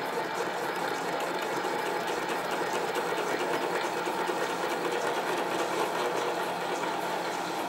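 Sieg bench lathe running steadily, its chuck spinning a brass bearing block on a mandrel while a lathe tool turns it, giving an even machine whirr with a fast, regular rattle.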